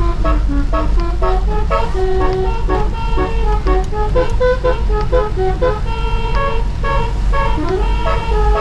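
A truck's musical air horn playing a quick melody of distinct notes over a steady low rumble.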